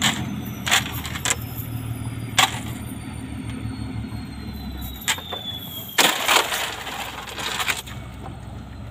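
Small boat engine running low, fading and cutting out about five seconds in. Scattered knocks of gear on the boat come through it, and a spell of splashing and knocking follows near the end.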